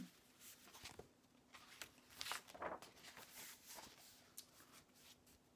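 Faint rustling and soft taps of a paper picture book's pages as it is handled and turned, in a near-silent room.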